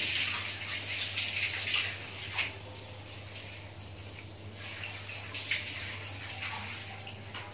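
Rustling and scraping as a metal rod is worked under the skin of a slaughtered sheep's hind leg, loosening the skin from the meat to open a channel for blowing air in. The noise is strongest for the first couple of seconds, then fainter, over a steady low hum.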